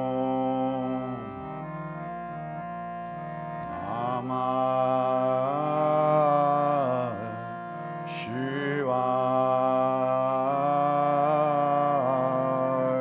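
Kirtan chant: a held harmonium drone under a long, drawn-out sung line that slides between notes. The voice comes in about four seconds in, breaks off briefly near the middle with a short breath, and returns to hold long notes.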